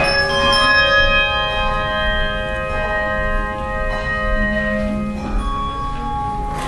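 A bell choir ringing tuned bells in chords. New notes are struck every second or so and left to ring on, overlapping one another.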